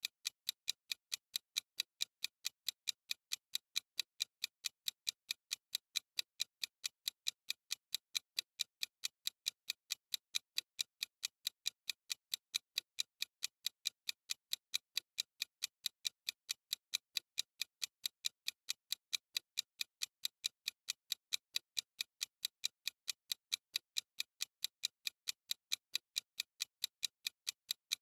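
Clock ticking sound effect: a steady run of short, evenly spaced ticks.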